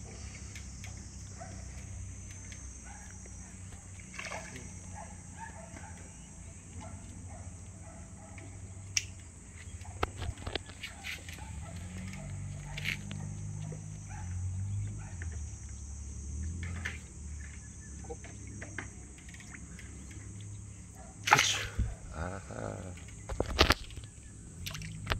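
Low, steady background hum with a few faint scattered clicks, then several sharp knocks and clicks in the last few seconds.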